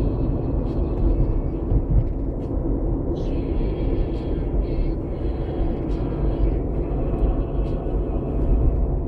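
Steady road noise inside a moving car: engine and tyre rumble, with a few faint ticks now and then.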